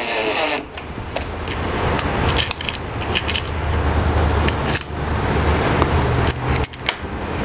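Cordless drill-driver whirring briefly as it drives a small screw, then scattered clicks and metal clinks of screws, washers and the drill being handled, over a steady low background hum.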